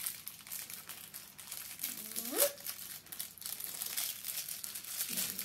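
Clear plastic wrapper crinkling and crackling in a child's hands as a small mochi squishy toy is unwrapped. A brief rising voice sound from the child comes about two seconds in.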